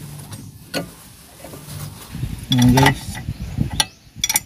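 Sharp metal clicks and clanks of hand tools and a car jack on the front suspension, with a quick run of clicks near the end. A brief loud voice sound comes about two and a half seconds in.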